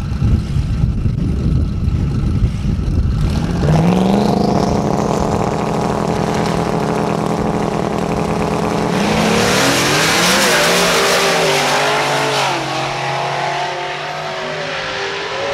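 Two drag cars, a turbocharged Ford Mustang 5.0 V8 and a Cadillac CTS-V V8, rumbling at the start line. After a few seconds they rev up and hold steady high revs on the line. About nine seconds in they launch with a loud rush of noise and accelerate away down the strip, their engine notes climbing and dropping through gear changes as they recede.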